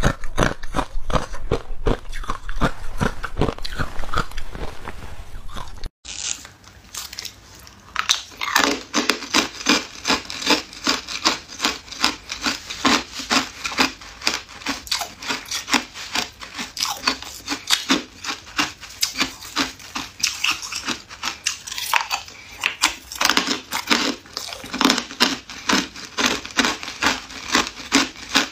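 Hard ice being bitten and chewed close to the microphone: dense crunching, a brief break about six seconds in, then a long steady run of crisp, evenly paced crunches.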